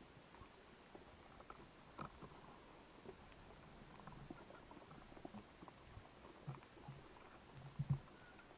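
Faint underwater ambience: scattered small clicks and crackles, with a few soft low thumps near the end, the loudest about eight seconds in.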